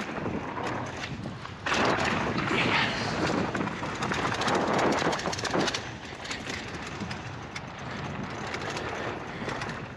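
Polygon Siskiu N9 mountain bike rolling fast down a dirt trail: a steady rush of tyre noise with fine rattling, louder for about four seconds starting about two seconds in.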